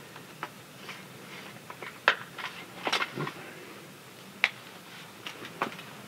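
Scattered sharp clicks and light knocks from hand work on a sawmill carriage's headblock hardware, about eight in all. The loudest come a little after two seconds in and again midway through.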